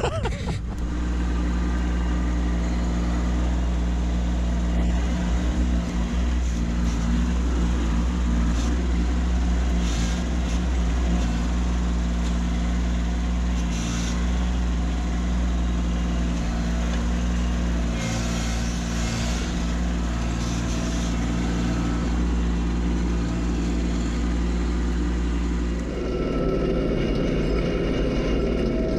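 Kubota B2601 compact tractor's three-cylinder diesel engine running steadily, its sound shifting a few seconds before the end.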